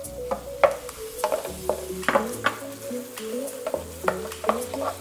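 Wooden spatula scraping and knocking in a nonstick wok as minced chicken is tipped in and stir-fried with egg, shallot and chilli, over a light sizzle. The scrapes and taps come irregularly, several a second.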